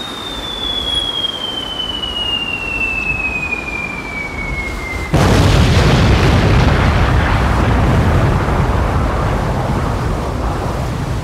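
A clean whistle falls steadily in pitch for about five seconds, like a bomb-drop sound effect, and is cut off by a loud sudden crash. The crash carries on as a long rushing noise of heavy storm waves breaking over a concrete pier, slowly fading.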